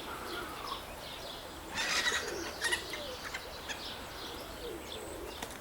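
Domestic pigeons cooing softly, low drawn-out coos that rise and fall, with a few faint chirps and a brief rustling burst about two seconds in.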